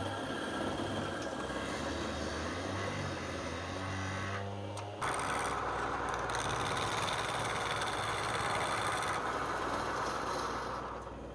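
Wood lathe running with a steady motor hum; about halfway through a louder, even rushing noise starts abruptly as a turning tool bites into the spinning wood, easing off near the end.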